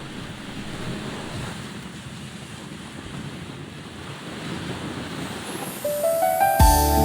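Sea waves washing with a steady rush, wind buffeting the microphone. About six seconds in, soft music with sustained tones comes in over it.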